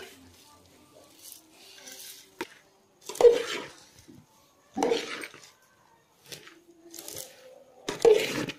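Metal spoon stirring puffed sorghum through jaggery syrup in a metal bowl, the dry popped grains rustling and the spoon knocking the bowl, with three louder scoops about three, five and eight seconds in.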